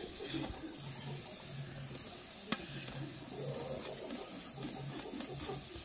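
Masala sizzling in a large metal pot as raw chicken pieces are stirred through it with a long steel ladle, with one sharp clink of the ladle against the pot about two and a half seconds in. A low hum pulses on and off about twice a second underneath.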